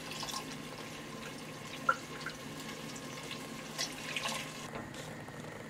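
Watery tomato liquid poured from a plastic jug into a pot of tomato sauce, a steady faint splashing, with a light knock about two seconds in.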